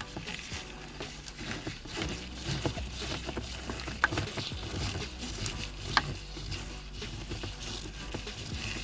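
Scattered small clicks and scrapes of a screwdriver working screws out of a BMW E46's plastic centre console trim, with two sharper clicks about four and six seconds in.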